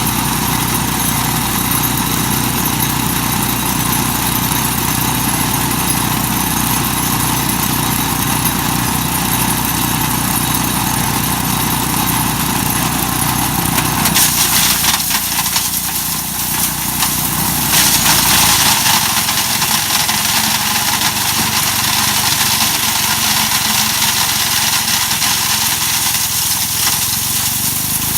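Mighty Mac wood chipper's engine running steadily. About halfway through, its low note drops and a louder, hissing grinding rush rises over it, the chipper shredding walnuts.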